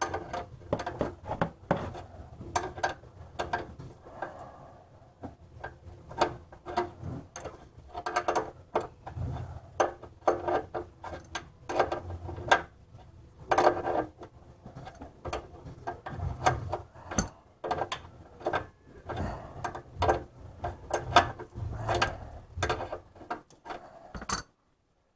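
Socket ratchet clicking in short, uneven runs with pauses as an oversized oil drain plug is worked loose; the plug is stuck tight, though not cross-threaded.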